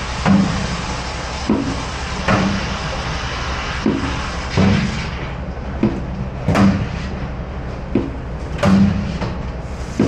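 Water running and spraying in a commercial stainless-steel dish sink, with repeated clunks and knocks of dishware against the sink. The hiss of the water thins about halfway through.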